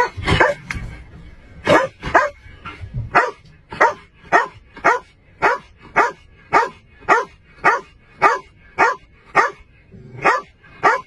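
Shepherd-type police dog barking over and over at a steady pace, about two barks a second, inside the enclosed cabin of a patrol car.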